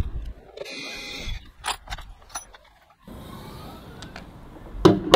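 A cordless drill-driver whirs briefly, nipping up a screw on the plastic trim panel, followed by a few light clicks and rattles of tools. Near the end there is a sharp knock.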